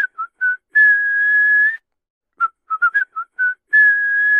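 A person whistling a short tune: a quick run of short notes followed by one long held note, with the phrase starting over about halfway through.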